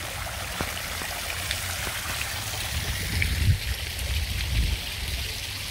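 Water splashing from the tiers of an outdoor tiered fountain and trickling into its basin, a steady splashing, with a few low bumps past the middle.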